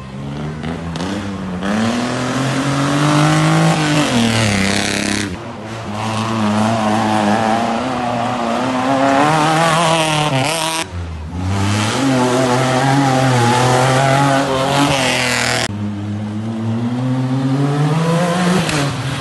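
Rally car engines revving hard through a dirt-road corner, pitch climbing and dropping with each gear change. The sound breaks off abruptly three times as one car's pass gives way to the next, the last pass being a side-by-side buggy's engine.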